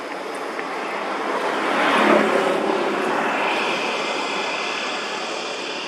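A steady motor drone with faint pitched lines swells to its loudest about two seconds in, then slowly fades.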